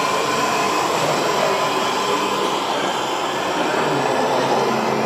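A 1:43-scale model railcar running on the layout's track, with a steady whirring running noise and a faint high whine.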